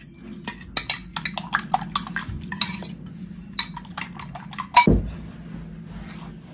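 A fork beating eggs in a metal bowl: rapid, uneven clinks of the tines against the bowl side. A little before five seconds in there is one loud knock as the bowl is set down, and the clinking stops.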